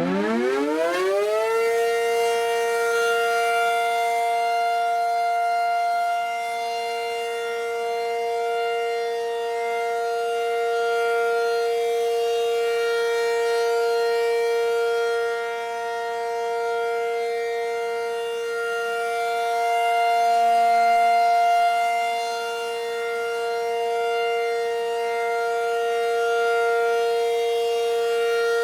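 Double-sided Model 500 air raid siren winding up quickly to a single steady high-pitched tone in about the first second and a half, then holding it, with slow swells and dips in loudness.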